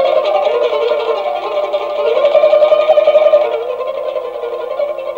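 Pipa (Chinese lute) playing a continuous, unbroken melody whose pitch slides up and down, growing softer about four seconds in.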